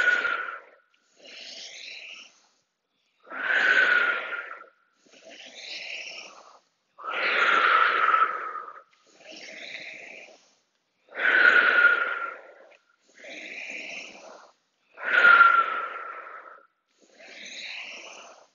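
A woman breathing hard in time with repeated side lunges: a loud, forceful exhale with a slight whistle about every four seconds, five in all, each followed by a quieter inhale.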